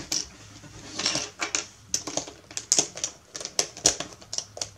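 Plastic pieces of a 3x3 speed cube clicking as edges are fitted in and layers turned, an irregular run of sharp clicks.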